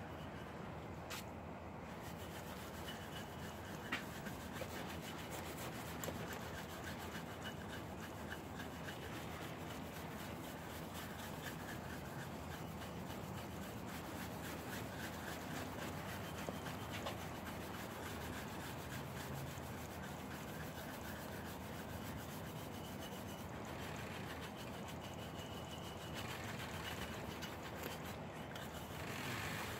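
Stiff bristle brush scrubbed steadily back and forth over the surface of a cast concrete sculpture, polishing its finish.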